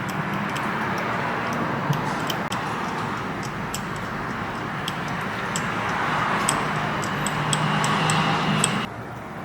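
Fine scratching with many small ticks as a blade scrapes the coating off broken copper traces on a laptop motherboard, exposing them for repair, with a low steady hum beneath. It cuts off suddenly near the end.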